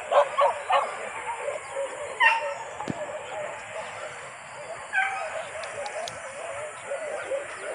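Short, pitched animal cries: a cluster in the first second, another just after two seconds and one about five seconds in, over a steady high drone.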